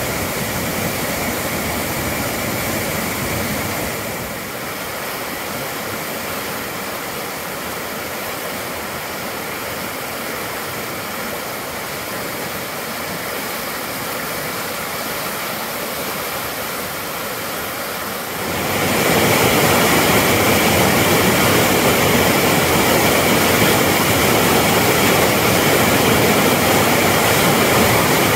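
Swollen river in flood rushing over a weir and through rapids: a steady rush of churning whitewater that suddenly steps louder about two-thirds of the way in.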